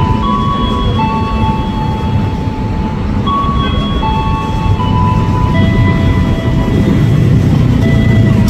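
Low, steady rumble of an approaching KRL Commuter Line electric train, with a run of steady high tones stepping from pitch to pitch over it.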